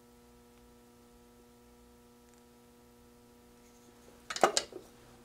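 Faint steady electrical hum, then a brief clatter of several sharp clicks about four seconds in, the loudest sound here.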